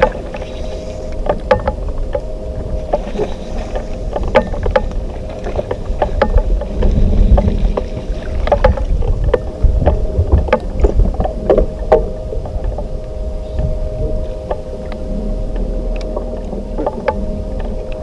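Bass boat's bow-mounted electric trolling motor running with a steady hum, under a low rumble of water and wind, with scattered clicks and knocks on the boat.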